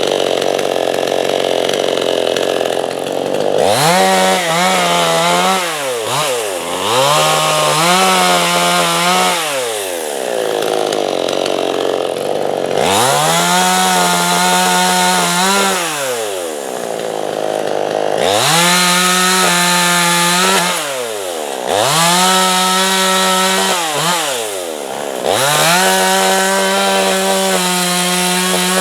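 Chainsaw ripping lengthwise along a spruce log to cut a slab freehand, the engine repeatedly revving up to full throttle, holding, then dropping back, about six times.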